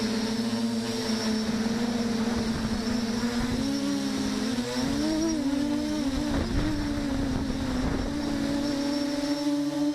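FPV drone's electric motors whining steadily, the pitch swinging up and down between several motors in the middle as the throttle changes, with low wind rumble.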